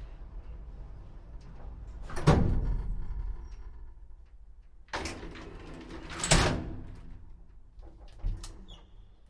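Elevator doors sliding and clunking over a low steady hum. There is a loud clunk about two seconds in, two more between five and six and a half seconds, and a smaller knock near the end.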